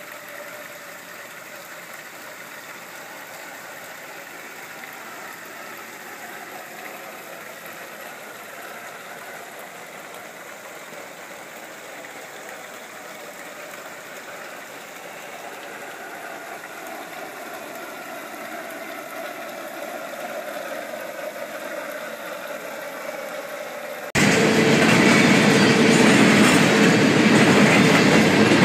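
A G-scale model trolley's small electric motor whining, its pitch gliding slowly as it runs along the garden track and growing gradually louder. About 24 seconds in, it cuts suddenly to a much louder full-size freight train passing close by a grade crossing.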